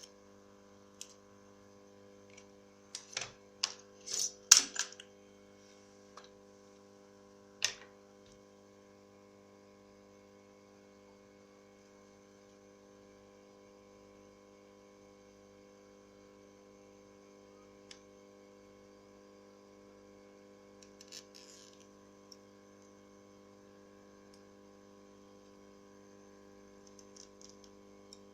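Sharp clicks and taps of small plastic phone parts being handled and pressed together during reassembly of a Lumia 535, with a quick cluster about three to five seconds in and another click near eight seconds. A steady electrical hum sits underneath, with only a few faint ticks later on.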